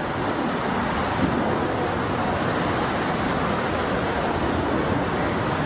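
Strong wind rushing steadily across an open cruise-ship deck in stormy weather, buffeting the microphone.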